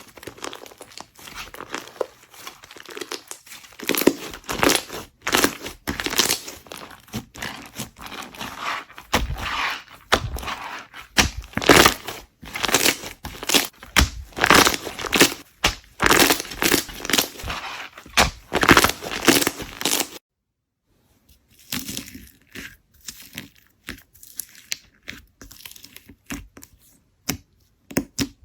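Slime being squeezed, stretched and pressed by hand, giving a dense run of sticky clicks and pops. About two-thirds of the way through it cuts off abruptly for a moment, then resumes more quietly.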